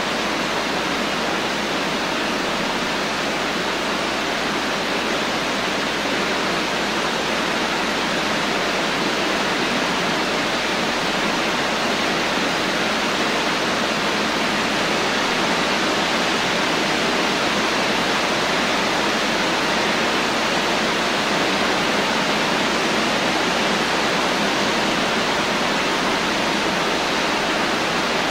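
Steady rain falling, an even hiss with no separate drop hits or changes in strength.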